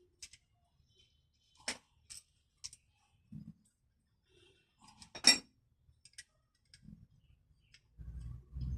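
Sparse metallic clicks and clinks of small metal parts and tools being handled, the loudest a sharp clink about five seconds in. A low, steady rumble starts near the end.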